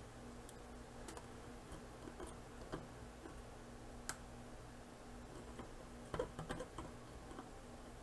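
Faint, scattered small metallic clicks of needle-nose pliers squeezing a Molex connector's female pin sockets tighter for better contact, with a quick cluster of clicks about three-quarters of the way through. A low steady hum runs underneath.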